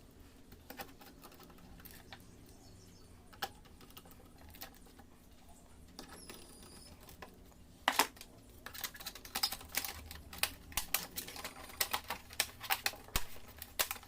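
Laptop keyboard keys clicking: a few scattered clicks, then from about eight seconds in a quick irregular run of key presses.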